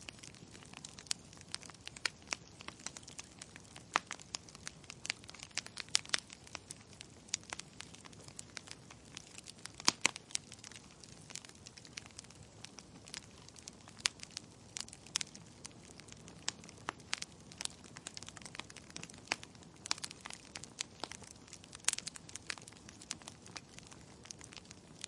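Wood logs burning in a fireplace, crackling with irregular sharp pops and snaps over a soft hiss. The loudest pop comes about ten seconds in.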